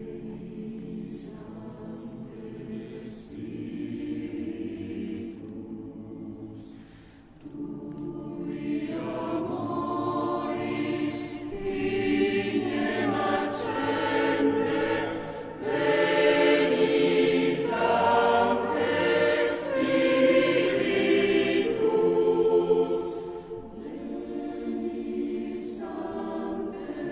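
Polyphonic choir singing, starting soft and swelling to full voice about halfway through, then easing off near the end.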